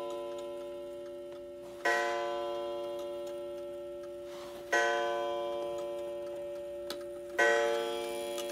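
Ansonia crystal regulator clock of about 1905 striking the hour. Three strikes come a little under three seconds apart, each ringing on and fading slowly, with the movement ticking faintly beneath.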